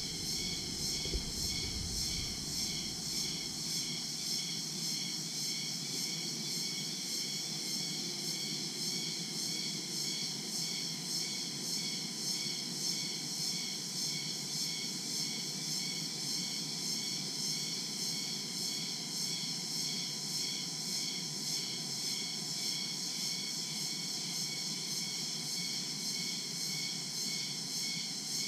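Daytime tropical jungle insect chorus: crickets and other insects trilling together in several layered high bands that pulse a few times a second, over a steady low rumble, with a brief low bump about a second in.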